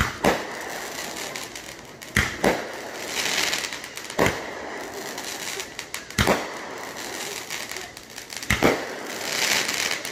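Aerial fireworks going off: sharp bangs about every two seconds, twice as close pairs, with a hissing rush between some of them.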